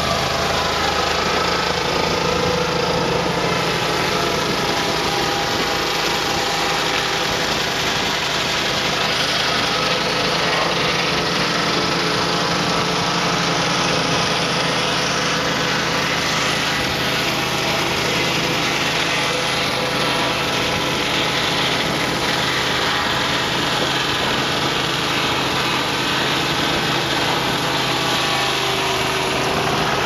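Portable sawmill's 27 hp twin-cylinder Kohler petrol engine running steadily under load while the blade saws through a log of cypress macrocarpa.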